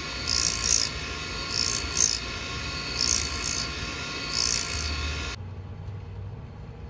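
Black & Decker model 4300 drill bit sharpener running, its motor humming steadily, with a short rasping grind of the drill bit against the grinding wheel each time the bit holder is turned, about every second and a half. The sound stops abruptly about five seconds in.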